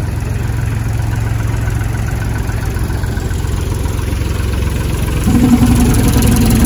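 Tractor-driven air compressor running steadily, a low engine hum. About five seconds in a second, higher steady engine note joins and the sound gets louder.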